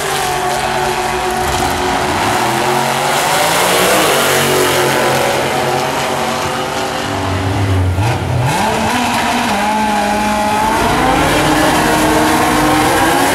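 Drag-racing cars running hard down the strip, engines revving and climbing in pitch as they accelerate, with a sharp rise about eight seconds in.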